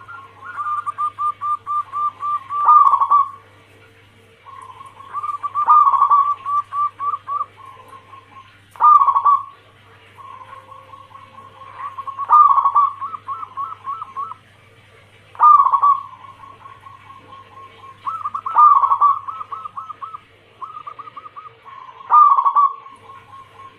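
Zebra dove (perkutut) cooing song: phrases every few seconds, each a loud opening coo followed by a quick run of rolling, stuttering notes, over a faint steady low hum.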